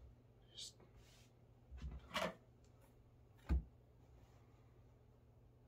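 A few brief handling noises of a quilt and ruler being positioned on a cutting mat: a short hiss, a couple of soft rustles, then one short knock about two-thirds of the way through, over a faint steady hum.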